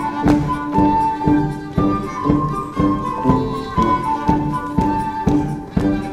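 Live traditional folk dance tune played by an ensemble with a drum: a melody over a steady beat of about two strokes a second.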